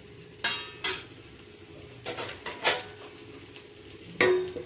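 Metal spoon clinking and scraping against a cooking pan as grated radish masala is mixed: a handful of separate strikes, with a louder metal clang near the end.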